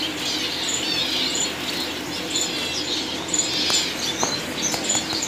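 Many small caged finches chirping and twittering at once, short high calls overlapping throughout, with a few light clicks about two-thirds of the way through.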